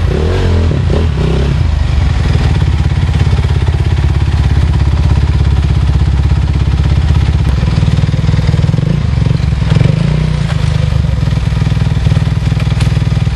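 Dirt bike engine running at low revs with small blips of throttle as the bike is worked over a rock step, the revs rising briefly about ten seconds in.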